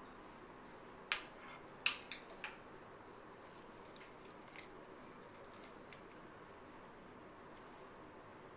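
Fresh curry leaves being pinched off their stems by hand and dropped into a bowl of sliced onions: a few faint, sharp snaps and rustles, spaced irregularly.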